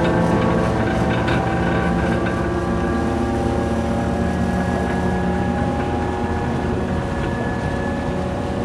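Vehicle punt's engine running steadily while the punt is under way: a constant drone with several steady tones over a low rumble.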